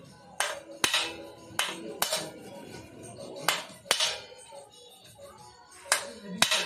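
Ball-peen hammer striking a steel ring set in the top of a motorcycle frame's steering head tube, tapping it into the tube. Sharp metallic clinks with a short ring, about eight strikes, mostly in quick pairs.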